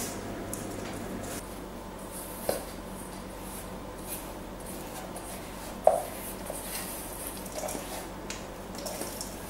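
Silicone spatula scraping a thick almond paste out of one bowl into a stainless-steel bowl of meringue: soft scraping with two light knocks against the bowls, the louder one about six seconds in.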